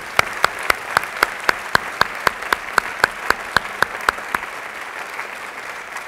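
Audience applauding, with one pair of hands close by clapping sharply and evenly at about four claps a second. The close claps stop about four seconds in, leaving the general applause.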